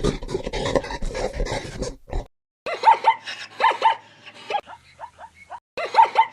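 A rough, growling animal call for about two seconds, then a short break, then a dog yipping and whining in short high-pitched calls, the same run of yips heard again about three seconds later.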